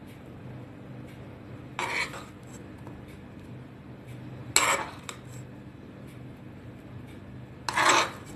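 A spoon scraping and clinking against a dish three times, about every three seconds, while scooping out filling; the last scrape is the longest and loudest. A steady low hum runs underneath.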